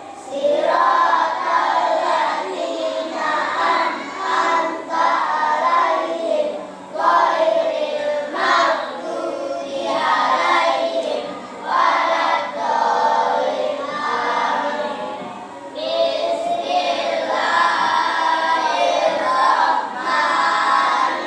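A group of voices singing together, in phrases with short breaks between them.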